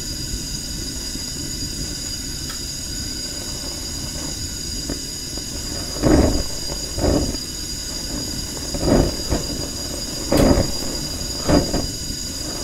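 Portable butane gas stove burner running with a steady low rumbling hiss while a marshmallow is toasted over its flame. About halfway through, five short, louder bursts of noise break in.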